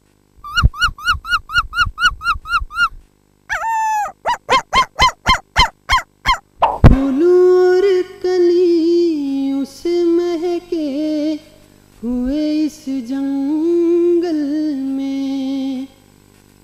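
A person imitating a dog yelping in pain after being hit with a stone: a quick run of about a dozen high yelps, then a string of shorter falling yelps. After a sudden cut about seven seconds in, a man sings, holding long wavering notes.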